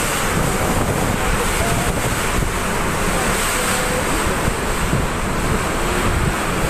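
Typhoon wind and heavy rain make a steady, loud rush, with gusts buffeting the microphone and adding an uneven low rumble.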